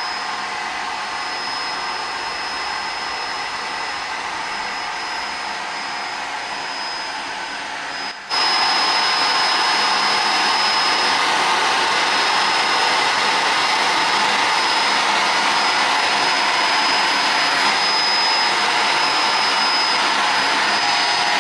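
Vacuum hair clipper running steadily with a thin high whine, shaving a head to 1.9 mm while its suction draws off the cut hair. About eight seconds in it suddenly gets louder and stays that way.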